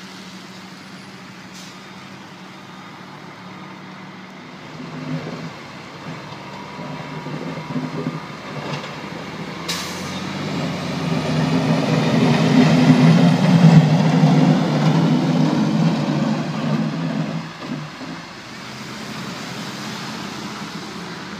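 Snowplow dump truck with a front plow blade driving past: its diesel engine grows louder to a peak a little past halfway, then fades as the truck pulls away.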